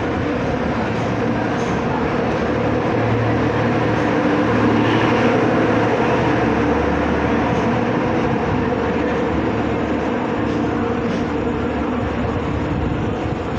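Rajdhani Express passenger coaches running through a station without stopping: a steady, loud rumble of wheels on the rails. It is loudest about five seconds in, as the louvred rear power car goes past, then eases a little as the train draws away.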